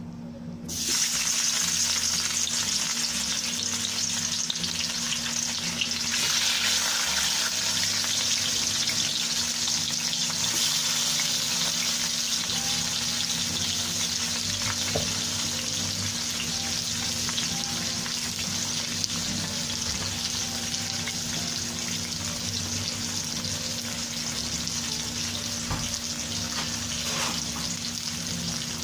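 Food frying in hot oil: a steady sizzle that starts suddenly about a second in.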